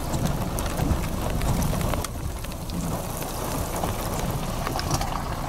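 Steady rain with wind rumbling on the microphone, and scattered sharp ticks of raindrops hitting it.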